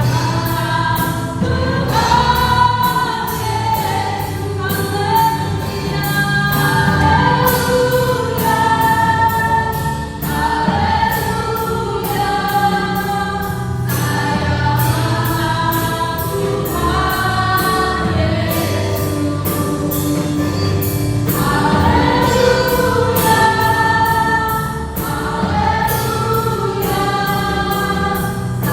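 A choir singing a Christian worship song over instrumental accompaniment with a steady beat.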